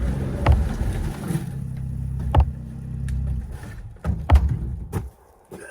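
Snowmobile engine running steadily, with several sharp knocks as the machine jolts over bumps. The sound drops away briefly near the end.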